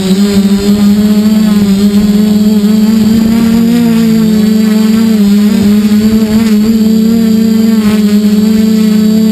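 Quadcopter's electric motors and propellers whining steadily as it hovers low, heard close up from a camera mounted on the frame; the pitch wavers slightly as the motors adjust.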